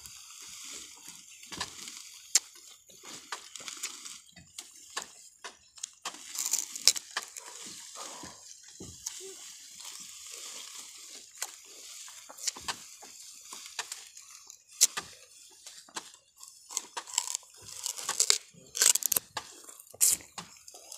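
Dry sugarcane stalks and leaf trash crackling and rustling as bundles of cut cane are gathered and carried, with irregular sharp snaps and knocks that come thicker near the end.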